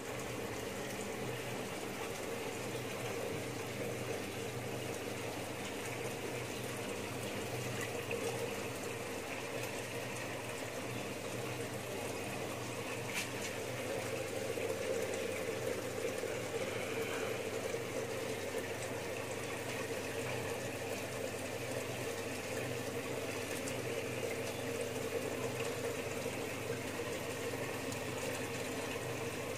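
Water running steadily from a hose into a shallow tub holding a large fish, a continuous pouring and splashing.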